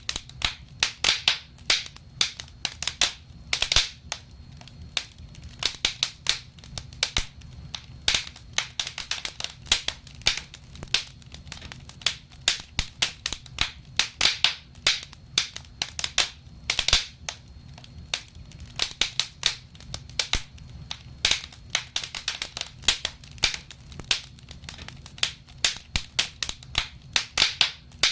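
Wood fire crackling in a fireplace: irregular snaps and pops, several a second, over a faint low rumble.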